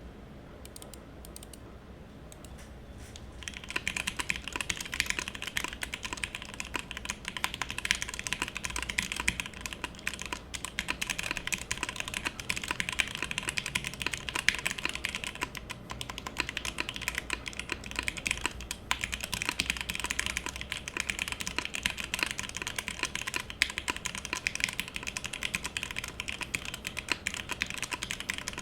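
Steady, fast typing on a Matrix 1.2og top-mount mechanical keyboard with lubed and filmed FFF switches in an aluminium full plate and GMK keycaps. Key presses come in a dense stream of clicks. It starts in earnest about three and a half seconds in, after a few faint clicks.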